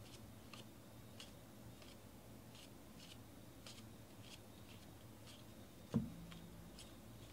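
Faint, soft clicks of Panini NBA Hoops basketball trading cards being slid off a stack one at a time, about two a second, with a single dull knock about six seconds in.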